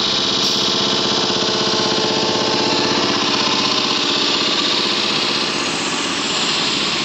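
A motor running with a fast, even rattle, dipping slightly near the end.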